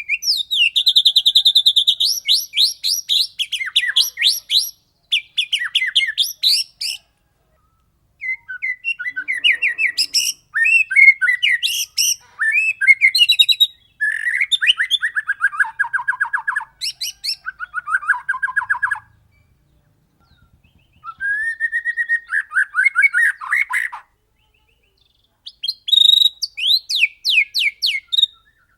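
White-rumped shama singing loudly in fast rolling phrases of rapidly repeated notes, some high and ringing, some lower and rattling, each phrase lasting a few seconds with short pauses between.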